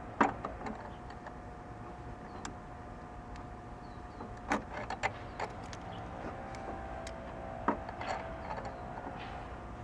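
Scattered metal clicks and clinks of hand tools loosening a car battery's hold-down clamp, with the sharpest knocks just after the start and about eight seconds in. A faint steady hum runs underneath.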